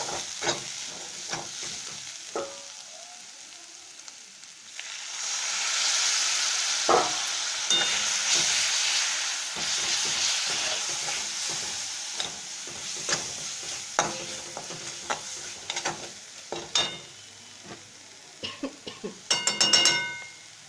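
Spice masala frying in mustard oil in a pan, stirred and scraped with a spatula in scattered knocks. About five seconds in, a loud sizzle surges up, fitting the little water just added to the hot masala, and slowly dies down; near the end come a few quick ringing metal clinks.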